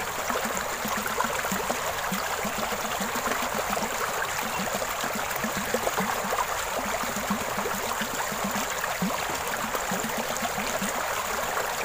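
Shallow stream water rushing and gurgling steadily around the paddle wheel of a small floating micro-hydro turbine.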